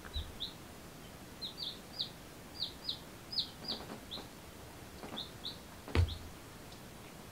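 Baby chicks, about three days old, peeping: a run of short, high, falling peeps in small clusters. A single thump about six seconds in is the loudest sound.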